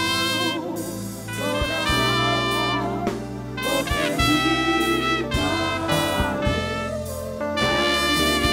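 Instrumental intro theme music: held melodic notes that change every second or so, over scattered drum hits.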